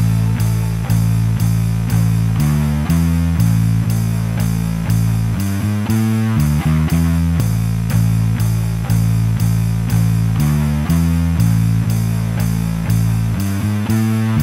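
Background music: a guitar-led instrumental with a steady beat of about two a second over a changing bass line.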